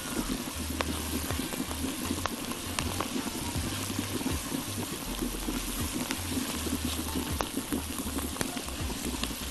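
Chopped onions frying in ghee in a pot with a steady sizzle, stirred with a silicone spatula that gives a few light taps against the pan.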